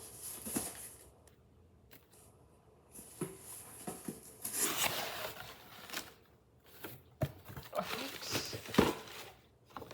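Cardboard subscription box being opened and handled: uneven tearing and rustling of packaging, with a couple of sharp knocks in the last few seconds.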